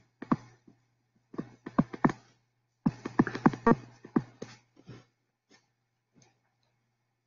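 Stylus tapping and scratching on a tablet screen while handwriting, in quick irregular clusters of short strokes that thin to a few ticks by about two-thirds of the way in and then stop.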